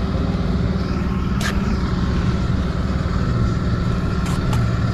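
An engine running steadily at a constant speed, with a few short sharp clicks or taps over it, one about a second and a half in and a couple near the end.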